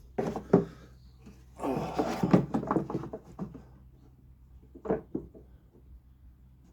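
Small wooden parts being handled and fitted: a couple of sharp wooden knocks near the start, a stretch of scraping and rubbing in the middle, and another knock about five seconds in.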